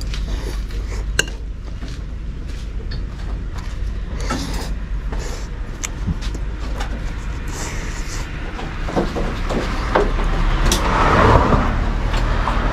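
Scattered light clicks of a spoon and fork on a plate during a meal, over a steady low hum. About nine seconds in, a louder noise swells up, peaks a second or two later and fades.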